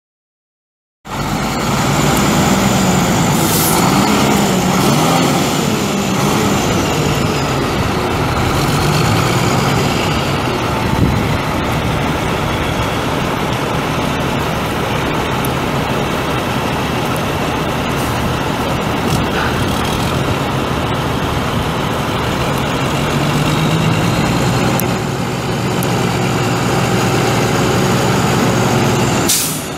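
Cummins ISM 10.8-litre inline-six turbo diesel of a Freightliner FLD112 semi truck running. The sound cuts in abruptly about a second in, the engine speed rises and falls a few times over the next several seconds, and it holds steady near the end.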